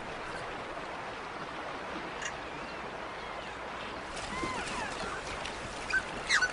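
Steady rush of flowing water, with a few faint high glides in the middle and a couple of short sharp ticks near the end.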